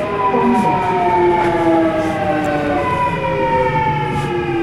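Subway train's electric traction motors whining inside the car, several tones falling steadily in pitch as the train slows into a station, over the rumble of the wheels on the track.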